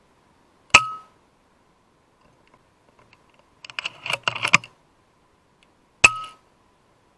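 Two shots from a .22 FX Impact M3 PCP air rifle, each a sharp crack with a short metallic ring, about five seconds apart. Between them comes a quick run of metallic clicks and clacks.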